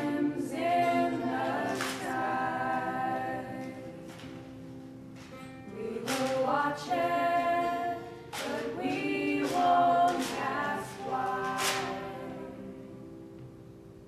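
A group of voices singing together, in sung phrases a few seconds long, with a few sharp knocks at uneven intervals.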